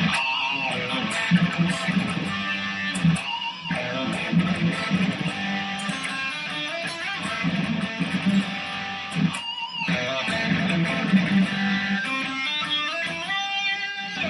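Custom Ibanez Fireman-style electric guitar played on its DiMarzio bridge pickup: a continuous run of fast riffs and licks, broken by two short pauses, about three and a half and nine and a half seconds in.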